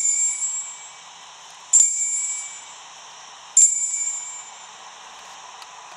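Altar bell rung three times about two seconds apart during the elevation of the chalice after the consecration. Each stroke gives a bright ring that dies away over about a second.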